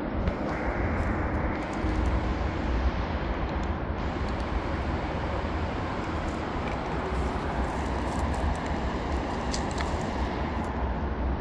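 Steady outdoor background noise: a low rumble under an even hiss, with a few faint clicks.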